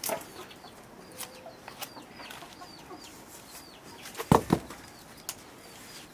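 A small bird chirps in short high notes, about three a second, for the first few seconds. About four seconds in, a split plank of firewood knocks twice in quick succession on the ground, the loudest sound, and a single sharp click follows a second later.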